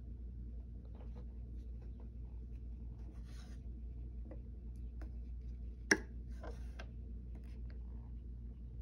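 Metal slide plate on a 1967 Singer sewing machine's bed being slid open and shut by hand: light scraping and small clicks, with one sharp click about six seconds in as it snaps closed. A steady low hum runs underneath.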